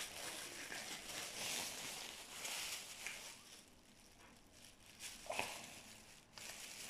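Faint rustling and crinkling of a thin plastic bag being opened out by hand, mostly in the first half and then dying away.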